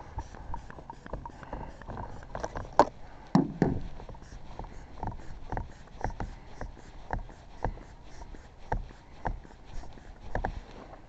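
Hand bulb pump squeezed over and over, about twice a second, inflating an air wedge bag to force open a car door gap. A sharp click and a thump come about three seconds in.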